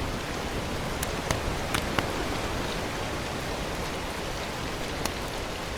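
Steady hiss of background noise with a few faint light clicks and taps.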